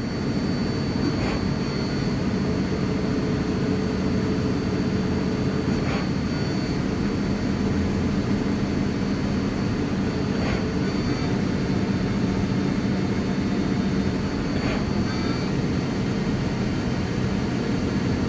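Ecoca EL 5110 CNC teach lathe running a program: a steady machine hum with a thin high whine, and a short click every four or five seconds.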